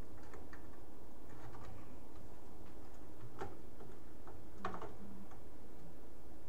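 Scattered, irregular small clicks and taps of plastic and cables being handled, as a power supply's thick main motherboard cable is worked toward its inlet, over a steady low background hum. Two slightly louder clicks come about halfway through and just before five seconds.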